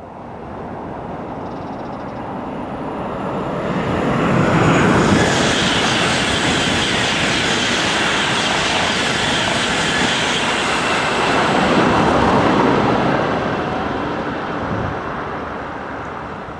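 High-speed train passing at speed: a wide rushing noise that builds over the first few seconds, stays loud for about eight seconds, then fades away near the end.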